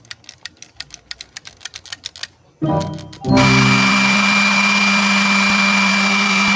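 Battery-powered toy power tool. It clicks rapidly for about two seconds, then after a short electronic tone it starts a loud, steady motor-like buzz with a low hum from about three seconds in.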